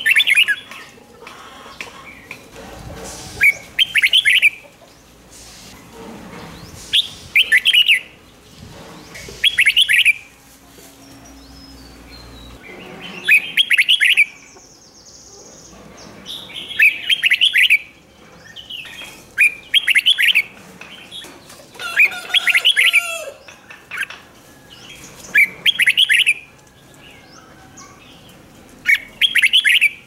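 Red-whiskered bulbul singing: short, loud warbled phrases, one every two to three seconds.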